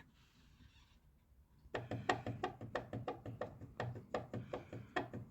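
Background music with a light, even percussive beat of short plucked or struck notes, starting after a near-silent gap of about a second and a half.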